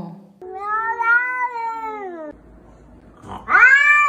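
Two long cat meows. The first lasts about two seconds and glides up and back down. After a short pause a second, louder, drawn-out meow rises sharply and is held.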